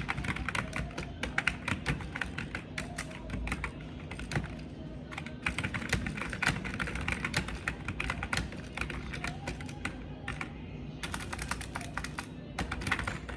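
Typing on a computer keyboard: quick runs of keystrokes in bursts, broken by short pauses, over a low steady background sound.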